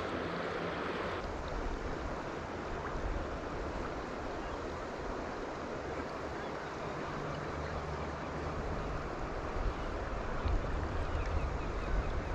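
Steady rush of river water, with a low wind rumble on the microphone that grows stronger in the second half.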